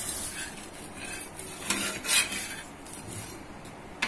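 A steel ladle and spatula scraping and knocking against a hot dosa tawa as rava dosa is cooked, over a steady hiss. The loudest knocks come about two seconds in.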